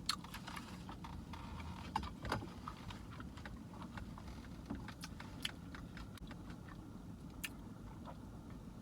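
Close-up eating sounds: scattered small clicks and crackles of chewing and handling a burrito, over a low steady car hum.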